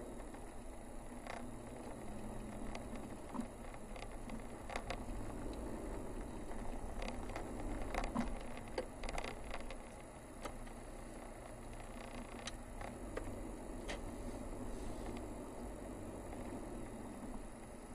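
Toyota car driving slowly, heard from inside the cabin: a steady low rumble of engine and tyres on the road, with scattered light clicks and ticks, thickest around the middle.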